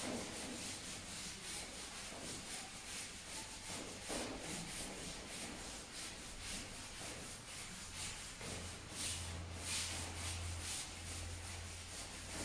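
Whiteboard eraser wiping marker writing off a whiteboard in quick, repeated back-and-forth strokes.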